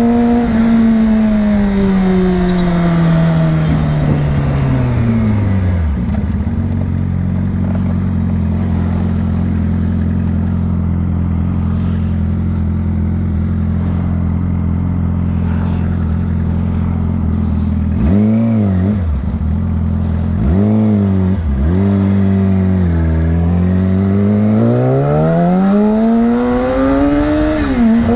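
Yamaha R6 inline-four through a Two Brothers aftermarket exhaust. Revs fall as the bike slows, it idles steadily, it is blipped twice, and then the revs climb as it pulls away.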